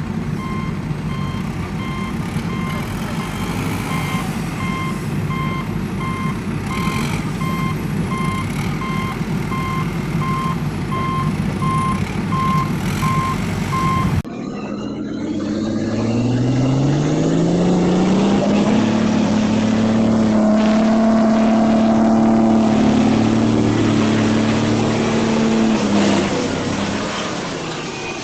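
A vehicle's reversing alarm beeps over and over at a steady rate above a low engine rumble. After a cut, a motor winds up in pitch, holds a steady note for several seconds, then dies down near the end.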